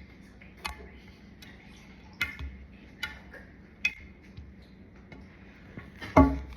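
Galaxy slime being squeezed and poked by hand, letting off sharp little clicks and pops from trapped air at uneven spacing, roughly one a second, with the loudest, fullest pop about six seconds in.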